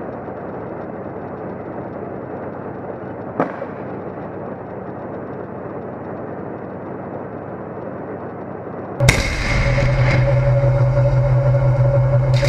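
Tank engine running steadily from the turret roof, with a single sharp crack of a shot or impact about three and a half seconds in. Just after nine seconds a sudden bang, and the engine becomes much louder, with a steady hum.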